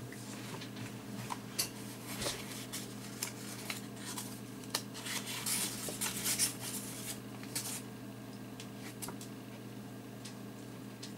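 Paper being handled: a book's pages and a folded paper crane rustling and crackling in a run of short clicks, busiest in the first eight seconds and sparser near the end, over a steady low hum.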